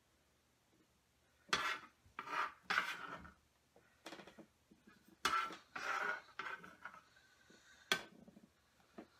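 Stainless steel bench scraper scraping chopped tomatoes across a wooden cutting board and tipping them into a glass bowl, in a few short scrapes with a sharp knock near the end.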